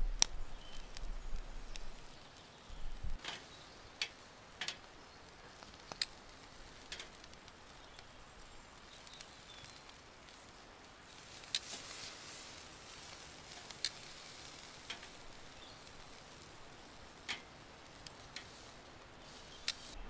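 Steady hiss of rain with scattered single drops ticking on a surface, one every second or two.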